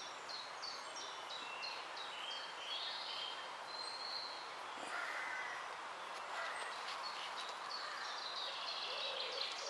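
Birds singing in the background: runs of short, high repeated chirps over a steady hiss of ambient noise.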